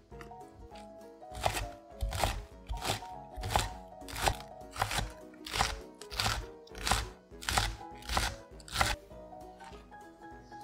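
A chef's knife slices a large green onion into rings on a wooden cutting board. There are about a dozen even strokes, roughly one every two-thirds of a second, each cutting through and knocking on the board. Background music plays throughout.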